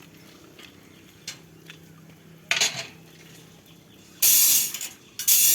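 Concrete work during column casting: three harsh scraping bursts, a short one about halfway through, then two louder ones of about half a second to a second each near the end.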